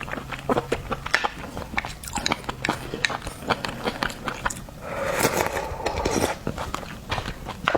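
Close-up mouth sounds of eating raw oysters: wet chewing and smacking clicks, with a longer, noisier stretch lasting about a second around five seconds in.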